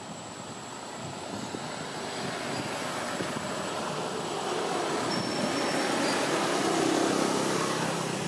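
Noise of a passing vehicle, a steady rush that swells gradually louder and peaks near the end.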